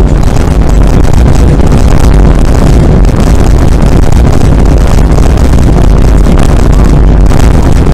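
"Vine boom" meme sound effects layered so densely that they merge into one continuous, heavily distorted bass rumble at full volume.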